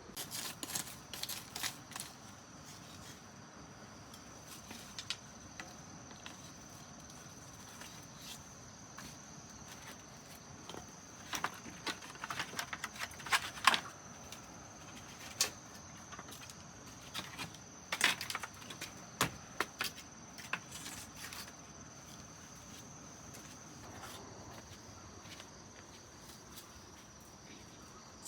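Crickets keep up a continuous high steady trill. Over it come three clusters of sharp clicks and knocks from objects being handled, the loudest about halfway through.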